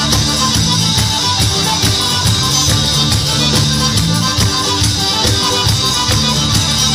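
Instrumental passage of a tarantella, a fast southern Italian folk dance, with a steady beat under sustained instrument lines.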